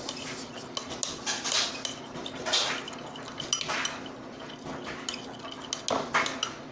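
Utensils scraping and clinking against mixing bowls in irregular strokes as glue and food colouring are stirred together for slime.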